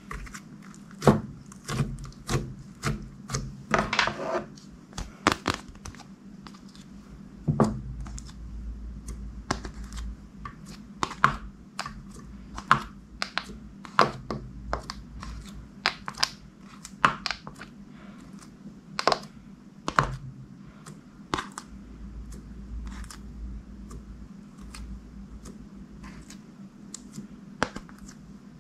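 Clear glossy slime being pressed, stretched and folded by hand, giving irregular sticky clicks and pops, about one or two a second.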